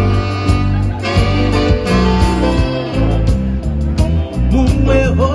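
Live band music: plucked guitar lines over a repeating bass line with a steady beat.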